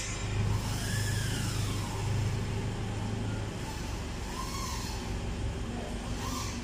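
Steady low hum of factory machinery that cuts off about halfway through, over a constant workshop hiss, with workers' voices calling faintly now and then.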